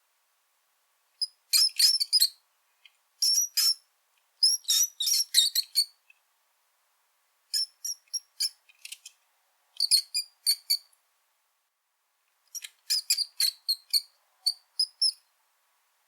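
Brown rat squeaking: about six clusters of rapid, high-pitched squeaks, each cluster lasting from half a second to two seconds, with silence in between.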